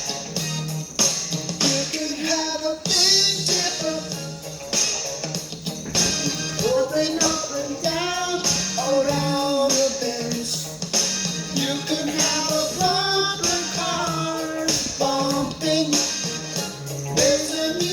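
Upbeat funk-rock music with a steady beat, tambourine and a melody line over it.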